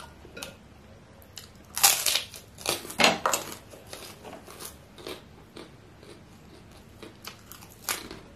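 Close-miked mouth sounds of a person chewing bakso (Indonesian meatballs): a run of wet smacks and chews, loudest about two and three seconds in, then fainter and sparser.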